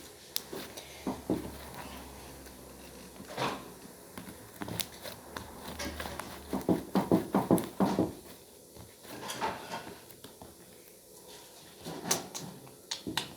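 Slime being squished and worked by hand, giving scattered wet clicks and pops, with a quick run of louder squelches about seven seconds in.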